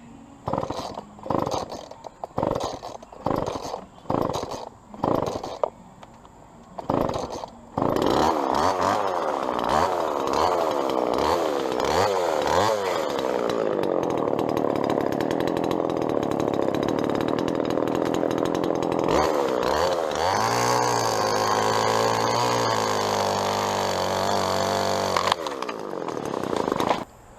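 Two-stroke chainsaw giving several short bursts of throttle, then running continuously at high revs, its pitch sagging and recovering as it cuts through the tree. It cuts off sharply near the end.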